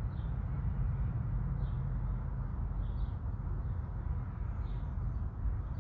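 Outdoor wind rumbling on the microphone, with a small bird chirping faintly every second or two.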